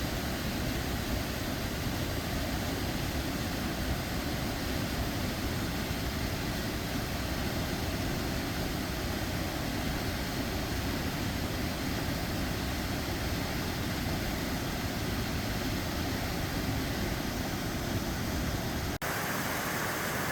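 Steady roar of falling water from a chain of creek waterfalls and cascades. About nineteen seconds in, it changes abruptly to a brighter hiss with less rumble.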